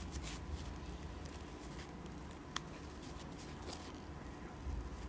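Steel scissors making short, faint snips through a soft foam dish sponge, with one sharper click about two and a half seconds in.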